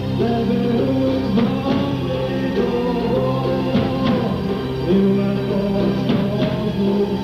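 Live ethno-rock music: a man singing while strumming an acoustic guitar, over steady low held notes.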